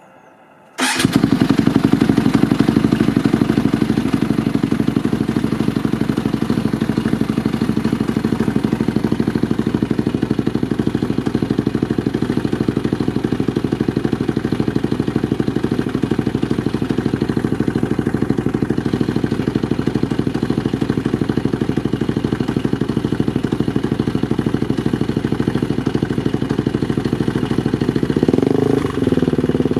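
Polaris Outlaw 525 ATV's KTM single-cylinder four-stroke engine, through a Big Gun EVO R slip-on exhaust, starting suddenly about a second in and then idling steadily. Near the end it is given one short rev.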